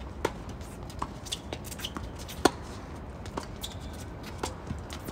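Tennis balls struck by rackets and bouncing on a hard court during a rally: a series of sharp pops, roughly one a second, the loudest about two and a half seconds in.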